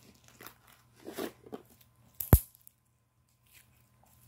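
Homemade glue slime being squeezed and kneaded in the hands, making short wet crackling squishes, with one sharp loud pop a little over two seconds in.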